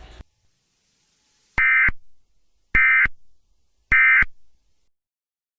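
Emergency Alert System end-of-message signal: three short, identical digital data bursts of the SAME code, a little over a second apart, marking the end of the alert message.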